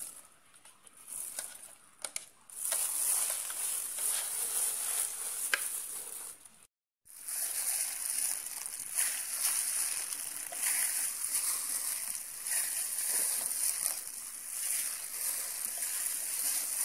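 A plastic-bagged hand kneading and squeezing crumbly donut dough in a metal bowl: steady rustling, crinkling and squishing. It is faint for the first couple of seconds, then continuous apart from a brief drop-out about seven seconds in.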